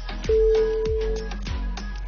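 Background music with a steady beat. About a quarter second in, a single loud steady electronic tone sounds for about a second over it.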